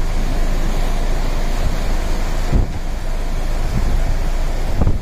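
Cyclone-driven surf crashing and churning against a sea wall, a loud, steady rush with heavy wind buffeting the microphone and a deep rumble.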